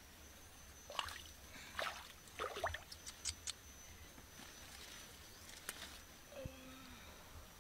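Water spinach being picked by hand: faint rustling and snapping of stems and leaves, a handful of short crackles about a second apart, with soft wet squishes from the muddy ground.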